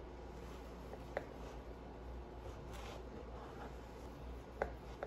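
A knife slicing through banana bread on a wooden cutting board: faint rubbing of the blade through the loaf and two sharp taps of the blade on the board, about a second in and near the end.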